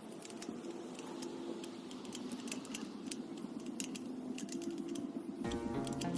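Light, irregular metallic clicks and rattles of bike parts and tools being handled. Background music comes in near the end.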